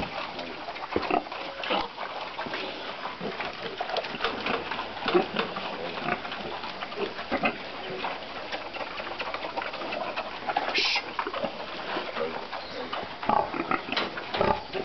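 A giant domestic pig of about 450 kg grunting and snuffling as it roots and feeds in a muddy pen, a run of many short, irregular noises.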